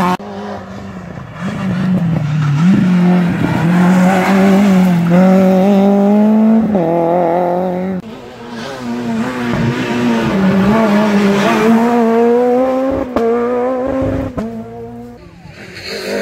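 Rally car engines at full throttle on a special stage: a car accelerates hard through a hairpin, its engine note climbing and dropping with each gear change. After a cut about eight seconds in, a second car does the same.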